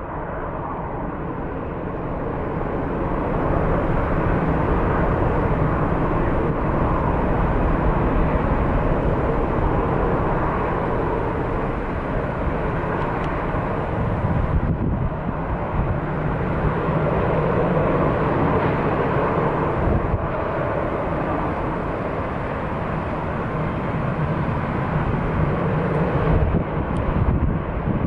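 Jet engines of an Airbus A380-800 running: a steady, loud rushing noise that swells a few seconds in and holds.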